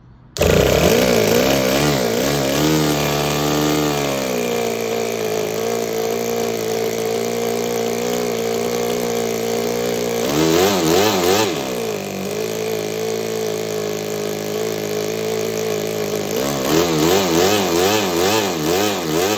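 Toyan Otto FS-L200 two-cylinder four-stroke nitro model engine starting up abruptly about half a second in and running, its speed steady at times and surging and wobbling at others while its carburetor needle is turned with a screwdriver. It is a freshly built engine that has hardly been run and still needs tuning.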